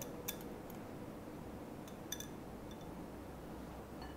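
Quiet background with a few faint clinks of a metal wire whisk against a glass bowl as dulce de leche is scraped out of it.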